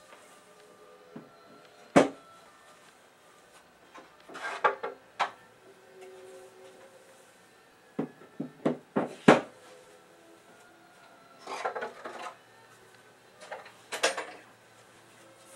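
Fluted cherry altar legs being fitted and locked into their wooden mounts by hand: hard wood-on-wood knocks and clunks, coming in short clusters every few seconds.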